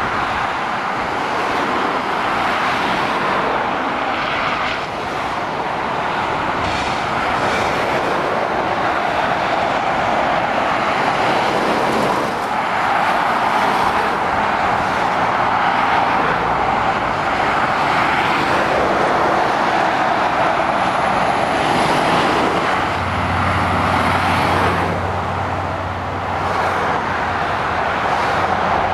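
Steady motorway traffic: tyre noise from lorries and cars passing below, swelling and fading as vehicles come and go. About three-quarters of the way through, a heavy lorry's low engine hum joins in.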